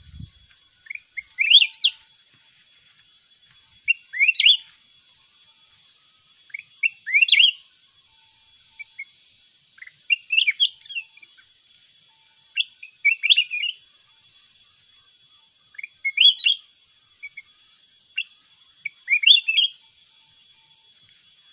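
Caged mountain bulbul singing sweet, short warbled phrases of quick rising and falling notes, one phrase every two to three seconds, as duel singing.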